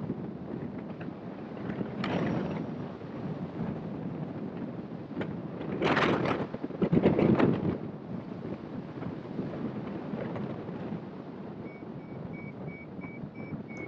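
Wind rushing over the microphone of a hang glider in flight, gusting louder about six to seven and a half seconds in. Near the end a variometer starts beeping, about three short steady beeps a second, the sign that the glider is climbing in lift.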